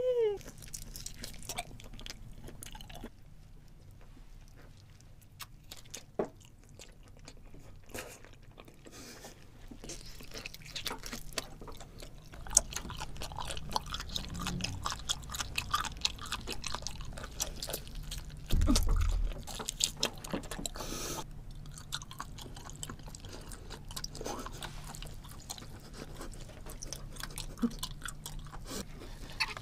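Close-miked chewing and biting of grilled octopus tentacle: a steady run of small mouth clicks and smacks, with one low thump a little under two-thirds of the way through.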